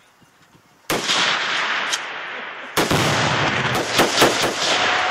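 Tannerite exploding: a sudden loud blast about a second in that rolls on as a long rumble, then a second loud blast about two seconds later, followed by a few sharp cracks.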